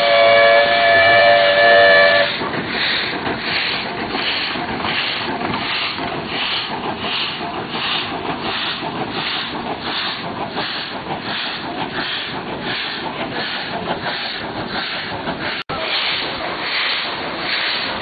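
WP class steam locomotive's whistle sounding a steady chord of several tones for about two seconds, then cutting off. The locomotive's exhaust chuffs follow in a steady rhythm of about three beats every two seconds as it works along, with a momentary gap in the sound about three-quarters of the way through.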